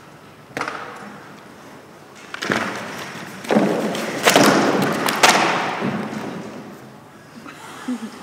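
Thumps and knocks on a theatre stage as a performer gets up abruptly from a chaise longue: one sharp knock about half a second in, then a louder cluster of thuds in the middle, each dying away slowly.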